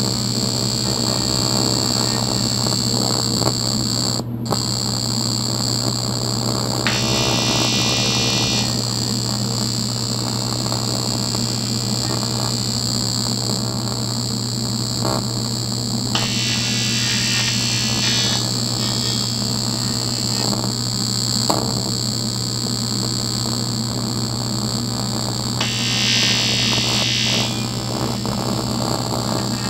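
AC TIG welding arc on aluminium, from an Eastwood TIG 200, buzzing steadily as filler rod is fed in to fill a hole. The hiss brightens for a second or two three times.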